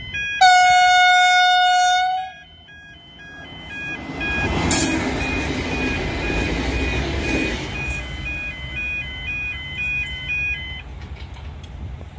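Level crossing bells ring in a steady, repeating two-note pattern and stop near the end. A train horn sounds one long blast about half a second in, the loudest sound here. Then a V/Line VLocity diesel railcar passes close by, its engine and wheel noise building and fading over several seconds.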